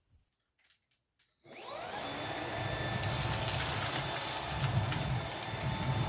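Shark ICZ160UK DuoClean cordless upright vacuum cleaner switching on about a second and a half in. Its motor whine rises as it spins up, then it runs steadily. Scattered crackles come as it sucks up sugar, coffee granules and bits of dried spaghetti.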